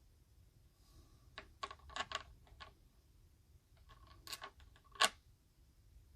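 Light metallic clicks and taps of small parts of a disassembled EVVA 3KS lock being handled, coming in two quick clusters, the sharpest click about five seconds in.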